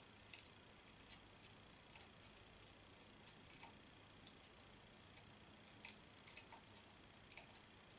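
Near silence with faint, irregular small clicks and ticks: a small screwdriver turning a tiny Phillips screw out of the Arlo Essential camera's housing.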